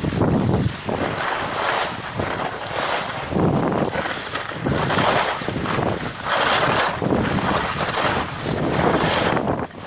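Wind buffeting the microphone, a loud rushing noise that swells and fades in repeated surges about every second and a half.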